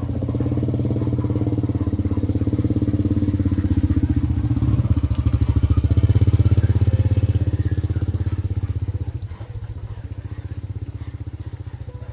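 Motorbike engine running close by with a fast, even pulse, growing louder to about six seconds in and then fading over the last few seconds.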